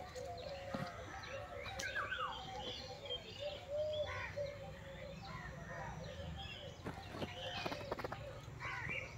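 Several birds chirping and calling, many short, overlapping notes that rise and fall in pitch.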